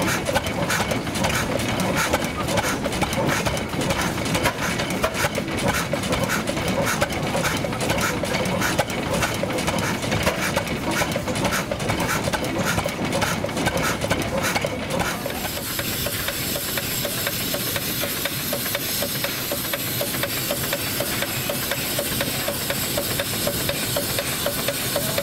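An old engine running with a steady rhythm of sharp knocks; about fifteen seconds in the sound changes to a steadier hiss with a faster, softer beat.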